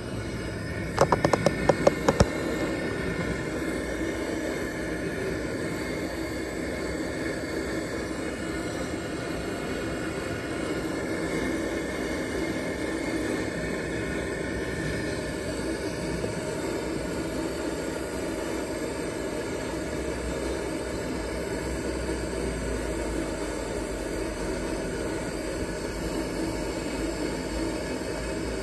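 Burner of a vintage Preway P4521 pressurized liquid-fuel camp stove running steadily under a pot of water, a steady flame hiss. A quick run of sharp clicks comes a second or two in.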